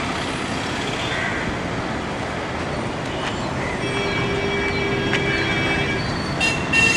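Steady street traffic noise, with a held tone in the middle and a vehicle horn sounding in short blasts near the end.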